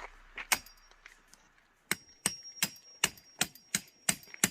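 Hammer blows on a metal tent stake, driving it into the ground: a single strike, then steady blows about three a second from about two seconds in, each with a short metallic ring.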